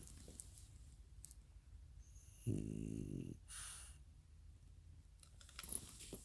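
Goat snoring in its sleep: one low, pitched snore lasting about a second, starting about two and a half seconds in, followed by a short hissing breath out.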